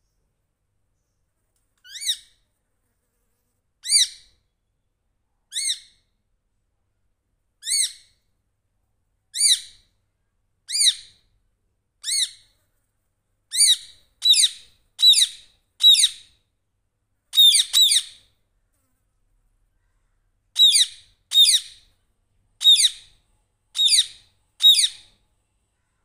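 A parakeet gives a series of short, sharp screeching calls, each sliding steeply down in pitch. They come about once every two seconds at first, then come faster and louder past the middle, and after a brief pause a final run of five follows.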